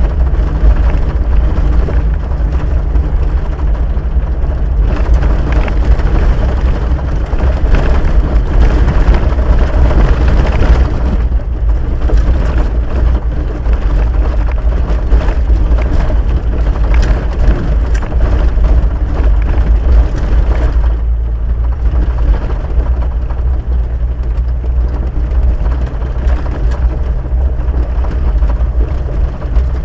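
Vehicle driving on a dirt road, heard from inside the cab: a steady low engine drone with a continual rough clatter of tyres on the gravel surface.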